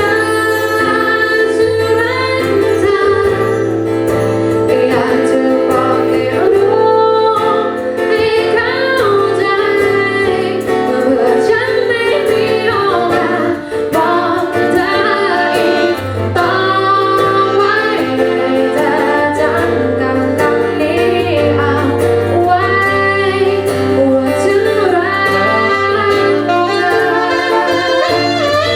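Band music with a woman singing a melody over steady bass and instrumental accompaniment.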